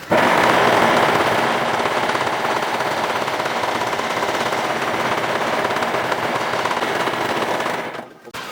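Electric power tool working wood, running with a fast, steady chatter that starts suddenly and cuts off near the end.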